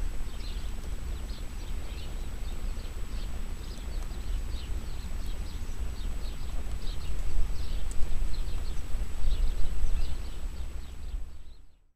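Wind buffeting the microphone with an uneven low rumble that swells in gusts toward the end, while small birds chirp over it again and again. Both fade out just before the end.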